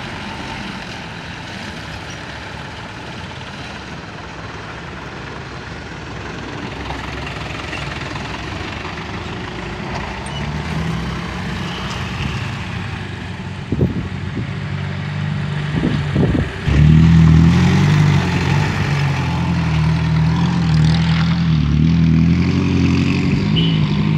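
Road traffic passing: vehicle engines running, growing louder from about ten seconds in, with a few sharp knocks. In the last several seconds a very loud engine runs close by.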